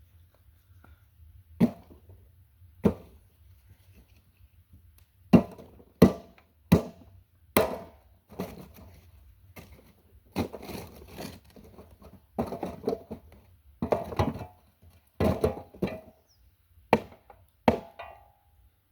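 Dry firewood being pounded and broken up: a dozen or more sharp wooden knocks and cracks at irregular intervals, some followed by brief splintering crackle.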